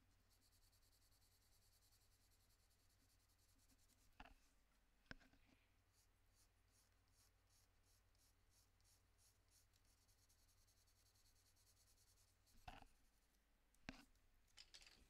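Faint scratching of a Prismacolor Premier coloured pencil on toned drawing paper, in short repeated strokes at about two or three a second through the middle, with a few soft knocks.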